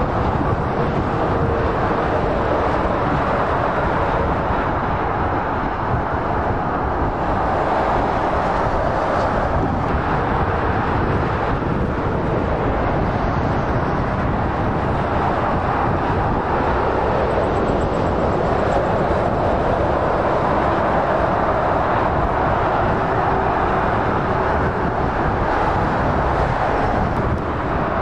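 Steady rush of heavy motorway traffic: tyre and engine noise from lorries and cars passing, swelling as vehicles go by, most strongly around eight to eleven seconds in and again past twenty seconds.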